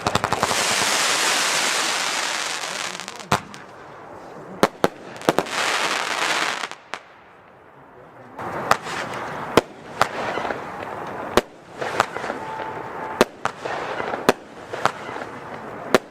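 F2 firework batteries firing: the Weco Boombox gives long hissing bursts with several sharp bangs. After a short lull, the Weco Ninja Fighter starts, firing sharp report shots about once a second.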